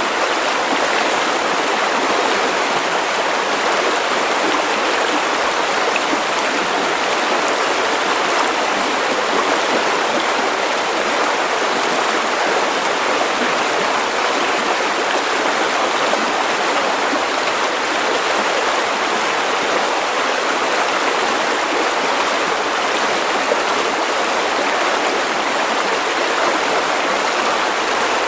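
River water running steadily over stones, a continuous even rushing and babbling.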